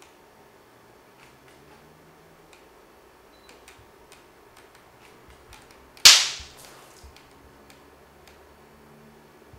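A single loud, sharp crack about six seconds in, dying away within half a second, among faint scattered clicks.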